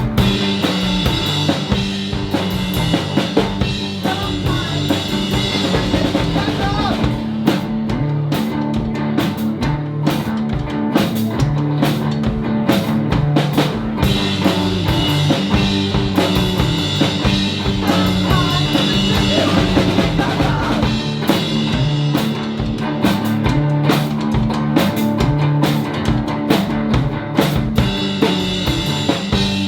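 Live band playing an instrumental passage, a drum kit keeping a steady beat on kick and snare under sustained bass and other instruments, with no singing.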